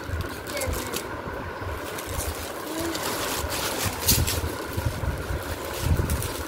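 Plastic bag wrapping crinkling and rustling as a bagged artificial flower garland is lifted and handled, with low bumps from handling near the microphone.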